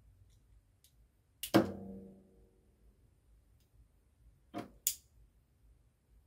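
Schneider 24 V DC contactor switching as a selector switch is turned: one sharp clack with a short ringing tail about a second and a half in as the coil releases, then two quick clicks a little after four and a half seconds as the switch is turned back and the contactor pulls in again.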